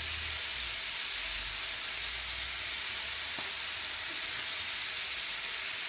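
Chopped onions and red peppers frying in a pan, with a steady sizzle.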